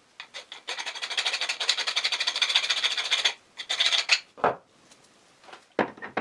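A hand file rasping on a cast-metal part of a drill-press mortising kit, taking off a small casting burr: a run of quick strokes for about three seconds, then a few single strokes. A couple of knocks follow near the end.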